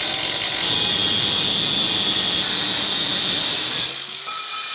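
Angle grinder with a cutoff disc cutting through sheet metal, a loud steady high-pitched grinding. About four seconds in the cut ends and the grinder runs on more quietly.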